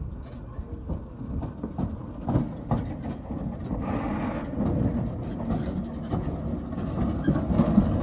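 Loaded flatbed semi-trailer truck driving slowly over a rough dirt road: a low engine rumble with repeated knocks and rattles from the trailer, growing louder toward the end.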